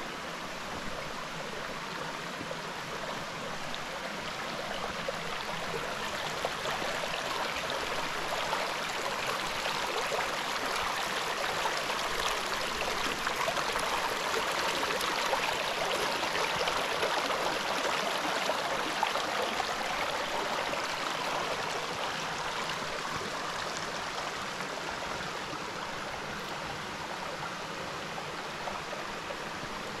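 Water of a rainforest stream flowing steadily, growing louder toward the middle and easing off again.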